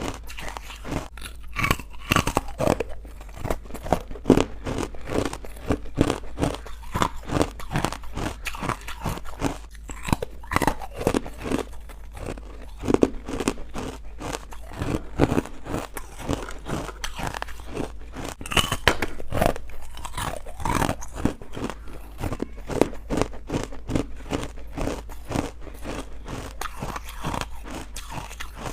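Someone chewing chalky, powdery white ice bites: continuous crunching made of many quick, sharp cracks, with no break.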